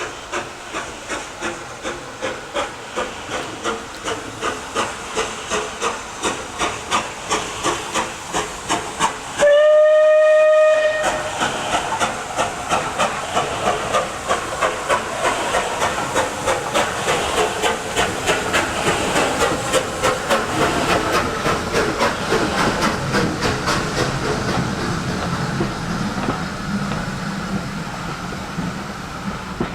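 Steam locomotive working hard, its exhaust beats coming in a steady rhythm that quickens over time. About ten seconds in it gives one loud whistle blast lasting about a second and a half.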